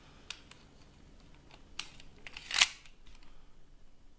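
Small clicks of the metal parts of a WE M92 airsoft pistol being handled during reassembly: a few separate clicks, the loudest a short metallic click-and-scrape about two and a half seconds in.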